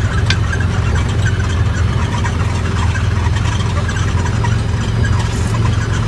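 Side-by-side utility vehicle's engine running steadily while driving, heard from inside the cab as an even low drone, with a few light rattles.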